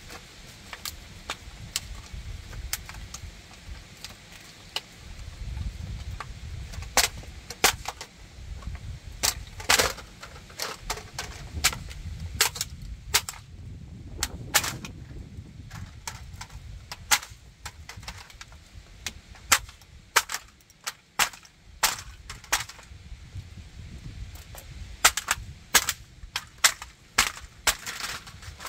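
A model tanker truck being crushed underfoot: a long, irregular run of sharp cracks and snaps as its body and trailer break apart under stomping sandals, the cracks coming thicker in the second half.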